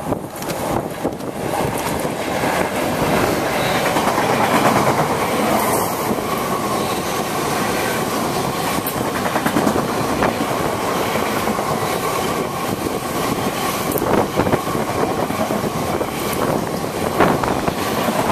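A train passing along the line, its noise building over the first few seconds and then holding steady.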